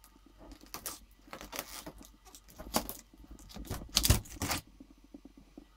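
Cured fiberglass shell cracking and clicking as it is pried loose from an aluminum hydrofoil fuselage. There is an irregular run of sharp cracks over about four seconds, and the loudest comes with a thump near the end.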